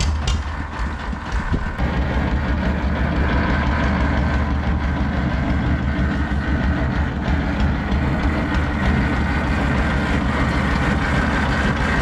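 Heavy vehicle engine running with a steady low rumble, growing louder about two seconds in and then holding.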